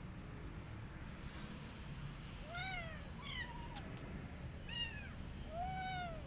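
A young kitten meowing four times, short high-pitched calls beginning about two and a half seconds in.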